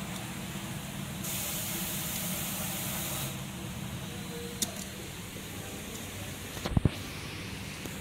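A spray hiss for about two seconds as sealant is sprayed over a patch on the inside of a tire, over a steady low hum. A sharp click follows midway, then a louder double knock near the end.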